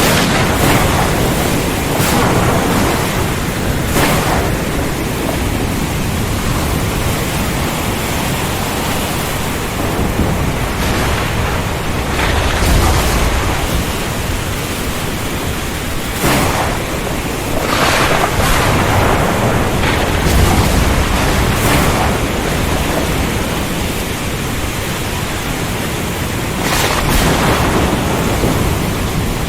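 Heavy rain falling as a dense, steady hiss, swelling louder every few seconds, with low rumbles of thunder underneath.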